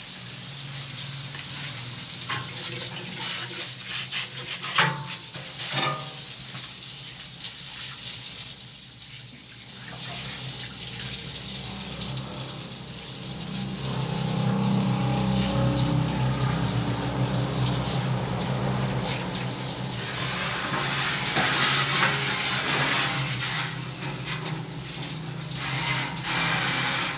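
Water running and splashing as a window air conditioner is rinsed, with a couple of short knocks about five seconds in.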